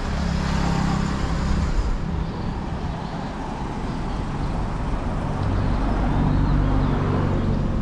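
Motor vehicles passing on a road: a low engine hum swells at the start and again near the end, over steady traffic noise.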